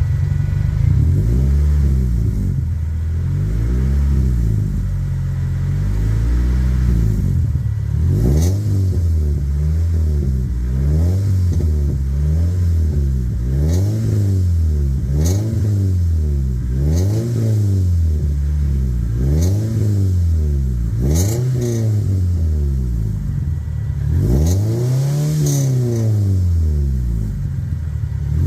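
Toyota Celica GT ST202's 3S-GE four-cylinder engine revved again and again, its pitch rising and falling about every second and a half, with one longer rev near the end. It is being revved to test for an exhaust leak, which the owner finds still there under throttle, though not at the joint he has just tightened.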